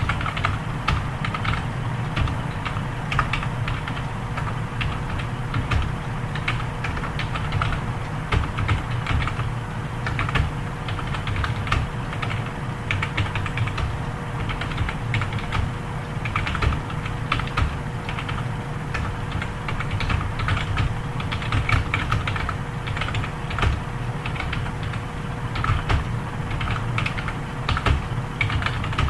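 Computer keyboard being typed on continuously in a timed typing test, with quick irregular keystrokes at about 37 words per minute. A steady low hum runs underneath.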